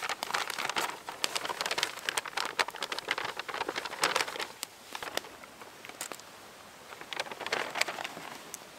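Brown paper bag rustling and crinkling as it is handled, with fat rubbed along its inside: clusters of sharp papery crackles, busiest in the first four seconds and again near the end.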